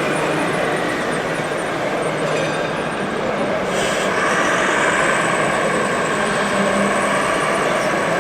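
Electric drive motors and gearboxes of RC model trucks whining, with a higher whine coming in and rising slightly about four seconds in, over a steady dense background noise.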